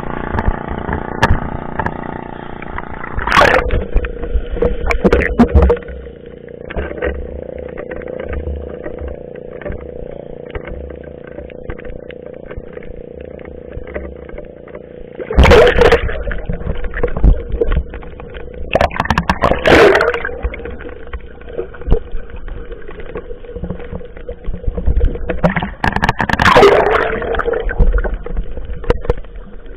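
A small fishing boat's engine running steadily, with four short, loud bursts of noise over it.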